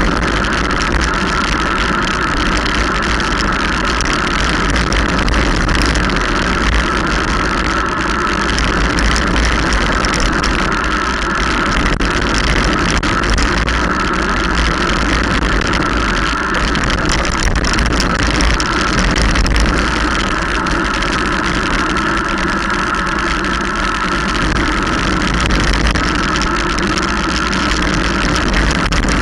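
Steady wind rush and low buffeting rumble on the microphone of a camera moving fast downhill, mixed with continuous tyre noise on tarmac.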